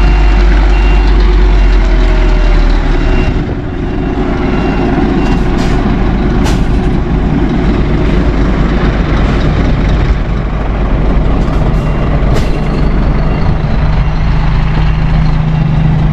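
Scania G440 8x4 dump truck's 13-litre straight-six diesel running as it manoeuvres. Its reversing alarm beeps steadily for the first few seconds and again briefly past the middle. A few short, sharp air-brake hisses come in the middle, and the engine note strengthens near the end as the truck pulls forward.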